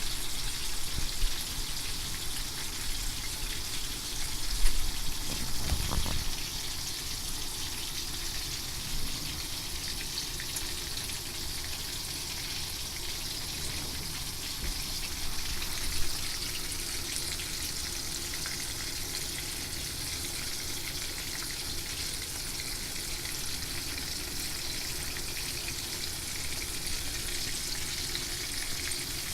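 Horse mackerel frying in hot oil: a steady sizzle, with a few brief knocks about five seconds in.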